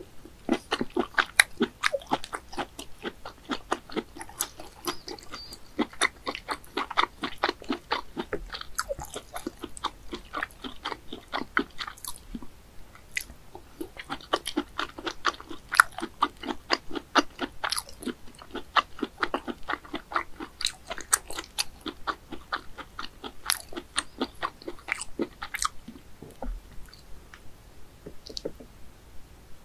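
Close-miked chewing of boiled snail meat: a fast, steady run of sharp clicking mouth sounds that thins out near the end.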